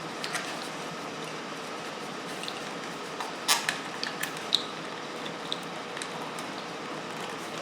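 A few short, sharp clicks and small rattles of plastic wiring connectors being handled and pulled apart on a motorcycle harness, the loudest about three and a half seconds in and again a second later, over a steady background hiss.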